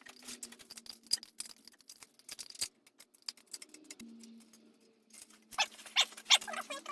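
A run of quick small clicks and scrapes, dense for the first couple of seconds, then a quieter gap and a louder cluster near the end, over a faint steady hum.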